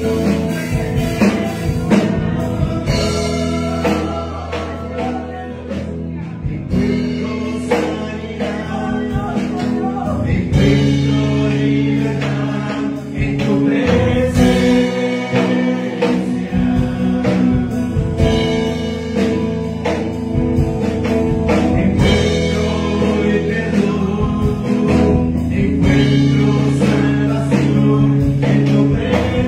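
A man sings a Spanish-language worship song into a microphone over music with long held chords.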